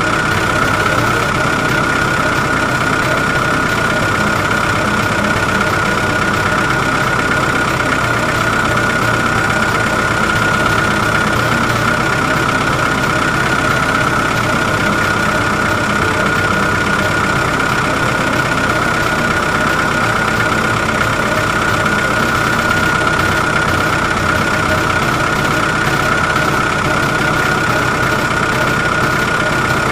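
Heavy construction machine's engine running steadily, with a steady high whine over it.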